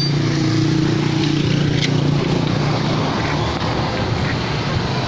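A motor vehicle engine running steadily with a low hum that fades a little about two seconds in. A single light click near the two-second mark.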